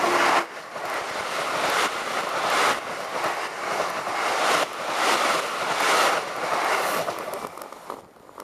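Iarnród Éireann DART electric multiple unit (8520 class) passing close by over a level crossing: a loud rush of wheel and rail noise broken by repeated clatters, roughly one or two a second, as the wheels run over the crossing. It dies away in the last second or so as the train clears.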